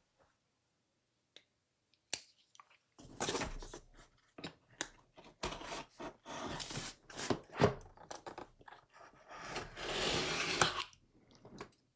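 Laptop packaging being handled and pulled open: a sharp click about two seconds in, then several seconds of irregular crinkling and tearing.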